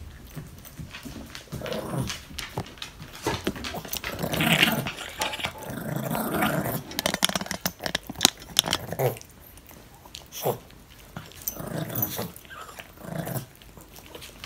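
Small dog gnawing and crunching a chew treat: a run of sharp crunching clicks, with louder bouts of chewing a few seconds in and again near the end.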